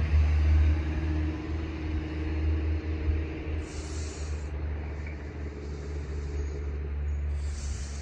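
Low rumble of a passing road vehicle, fading away, with church bells faintly ringing behind it.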